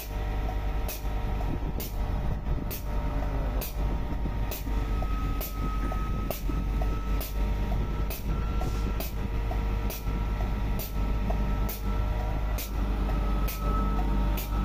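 Pneumatic grease pump cycling with a sharp puff about once a second, feeding a hose-fed grease gun on a wheel loader's pivot joints, over a steady diesel engine drone.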